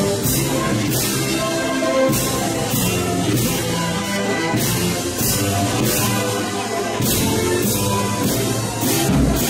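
Processional band music: held melodic tones over drums, with cymbal-like strikes on a steady march beat.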